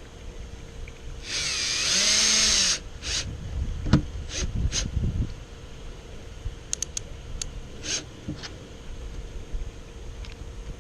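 A power drill runs for about a second and a half, driving a screw into the trailer's wooden roof, its motor pitch rising and then falling. Scattered clicks and knocks follow.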